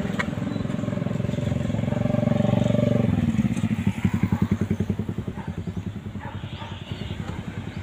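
A small engine running with a steady hum; about three seconds in its pitch drops and it settles into an even, pulsing putter that slowly fades.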